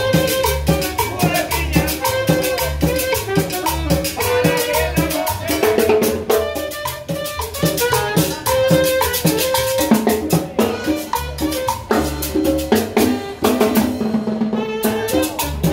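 Live Latin band playing an upbeat dance tune: congas and timbales drumming a busy rhythm, a metal güira scraping, upright bass underneath, and a melody line of held notes over the top.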